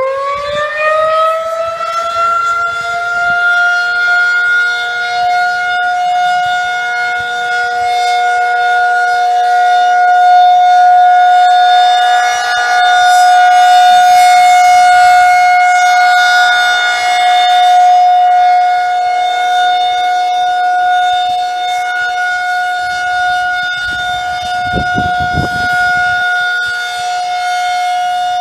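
Outdoor tornado warning siren on its monthly test. It finishes winding up with a rising pitch over the first couple of seconds, then holds one steady wail that slowly swells and fades in loudness.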